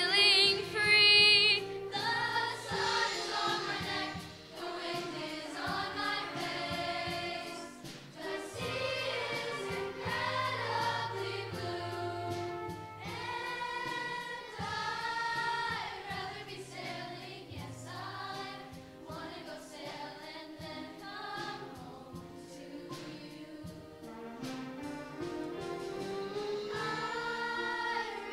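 Middle school show choir singing in full voice with live band accompaniment, steady low instrumental notes beneath the voices.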